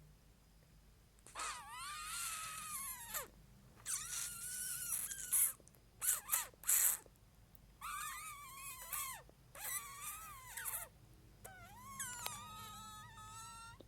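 A pet wailing in a series of long, high-pitched, wavering calls with short pauses between them, plus a few brief sharp cries partway through. It is reacting to a sound it dislikes.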